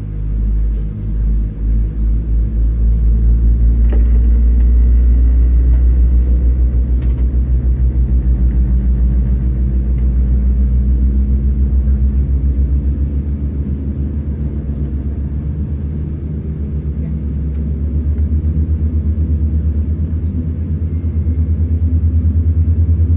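Low rumbling drone of the Boeing 787-10's GE GEnx engines heard from inside the cabin, throbbing with a fast, even beat. It eases off a little in the middle and builds again near the end.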